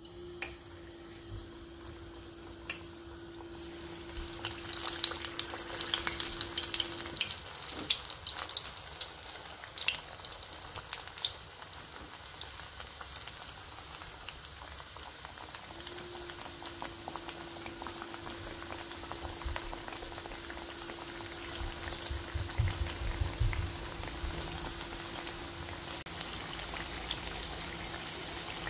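Batter-coated potato slices deep-frying in hot oil: a steady sizzling crackle, with a flurry of sharp spits and pops during the first half as fresh slices hit the oil.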